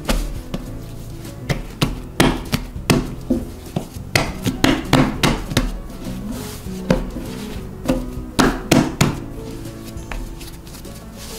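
Irregular soft thuds and knocks of baguette dough being folded, pressed and set down by hand on a wooden table, over background music.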